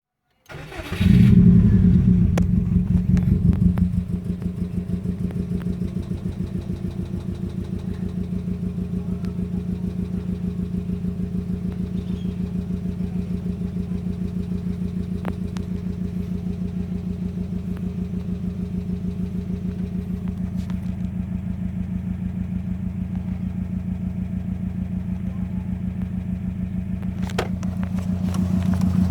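Subaru WRX's EJ20 turbocharged flat-four engine, loud for the first few seconds and then settling to a steady idle with an even pulsing beat, picking up slightly near the end. It is misfiring on cylinder 3, with trouble code P0340 logged.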